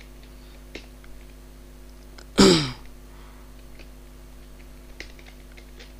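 A few scattered computer keyboard keystrokes over a steady low electrical hum, with one short, loud vocal noise from the person at the keyboard about two and a half seconds in.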